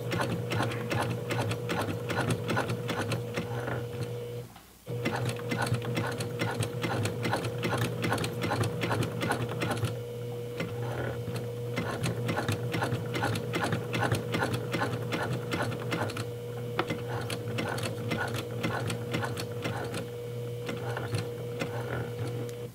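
Straight-stitch home sewing machine running steadily as it stitches through layers of denim: the motor hums under rapid, even needle clicks. It stops briefly about four and a half seconds in, runs on, then stops near the end.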